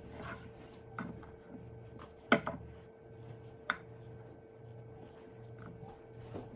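Kitchen knife peeling a raw potato at a wooden cutting board: scattered light clicks and knocks of the blade and the potato, the loudest a sharp knock about two seconds in, over a steady low hum.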